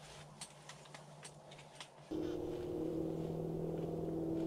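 A few faint clicks and light rustles, then about two seconds in a steady low hum with several even tones sets in abruptly and holds.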